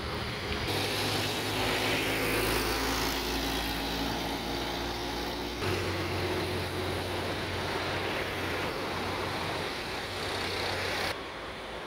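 Street traffic: motor vehicle engines running and passing, a steady noise with a low engine hum, changing abruptly a few times.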